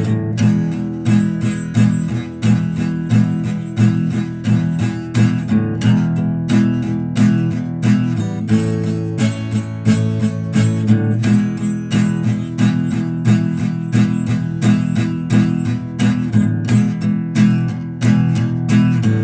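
Music: guitar strummed in a steady, even rhythm.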